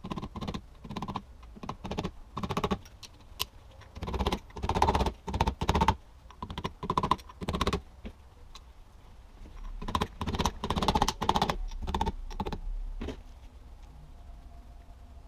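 Steel parts of a CV joint clicking and clacking against each other as they are worked by hand in a bench vise during a rebuild. The clicking comes in two spells of rapid, uneven clicks, with a short lull about eight seconds in, and dies away about two seconds before the end.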